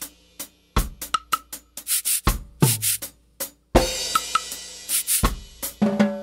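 Drum and percussion loop from a studio recording: bass drum, snare and hi-hat strikes in an uneven, syncopated pattern, with a couple of deeper, pitched drum hits that ring on briefly.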